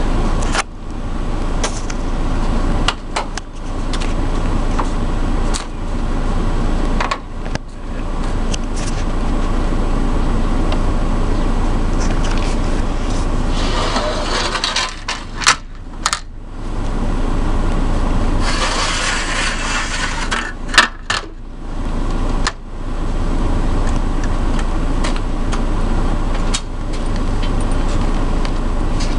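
An engine runs steadily. A few sharp metallic clanks come about halfway through and again a few seconds later as metal loading ramps are set against the van's rear floor.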